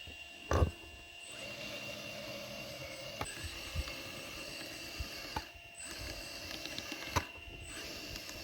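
Radio-controlled hydraulic scale construction machine working: its pump and motor run with a steady high whine, broken by sharp mechanical clicks and knocks, the loudest about half a second in.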